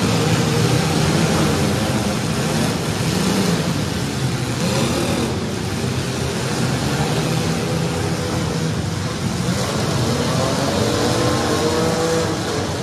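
Several welded compact demolition derby cars' engines running and revving together in a loud, steady roar.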